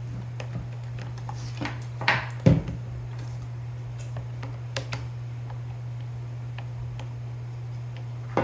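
Scattered light clicks and taps of small parts and tools being handled on an airsoft gun, the loudest a single knock about two and a half seconds in, over a steady low hum.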